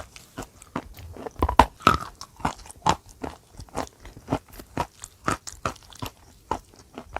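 Close-miked chewing of a mouthful of white chalk: a run of short, crisp crunches, about two or three a second, with a stronger crunch a little under two seconds in.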